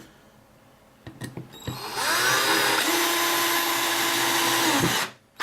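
Power drill driving a screw. The motor spins up with a rising whine about two seconds in, runs steadily for about three seconds, then slows and stops, with a short second burst starting at the very end.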